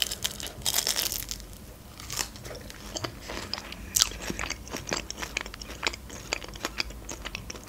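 Biting into and chewing a crisp fried pastry pie with a red fruit filling, close to the microphone: a dense run of crisp crunches in the first second or so, then irregular crackly crunches as the crust is chewed.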